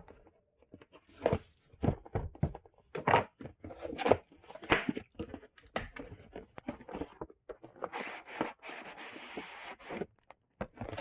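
Keyboard packaging being opened by hand: a run of short knocks and scrapes of cardboard and plastic, then a couple of seconds of tearing near the end.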